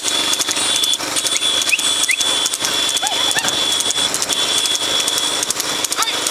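Horse-drawn rekla racing carts running at speed: a dense, fast clatter of hooves and rattling cart wheels. Over it runs a steady high whine, with a few short rising whistles in the middle and near the end.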